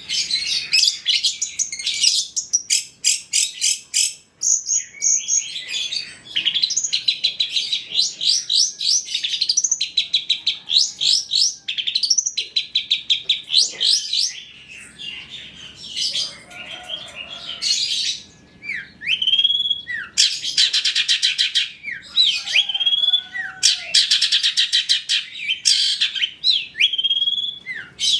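Long-tailed shrike (cendet) song: a fast, varied run of chattering trills, dry rattles and repeated rising whistles, with only brief gaps.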